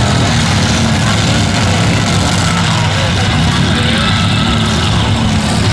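Engines of several demolition-derby pickup trucks running loudly together as they drive around the dirt arena.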